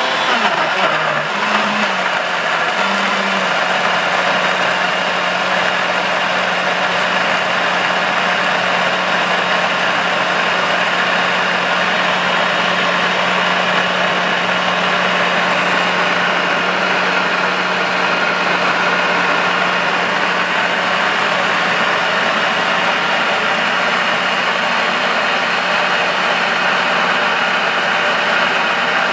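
Stadler Form Blender Five countertop blender running at speed, grinding whole lemons into a smooth purée. Its motor gives a loud, steady drone with a constant hum, whose pitch wavers briefly in the first few seconds and then holds steady.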